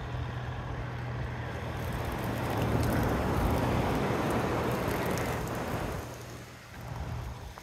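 A steady engine hum with a rushing noise that swells about two seconds in, stays loud for a few seconds and falls away after about six seconds, like a motor passing by.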